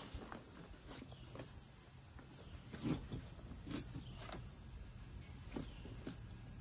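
Scattered clicks and knocks from a folding camp cot's frame as it is pressed down to open it, the loudest about three seconds in, over a steady high-pitched insect drone.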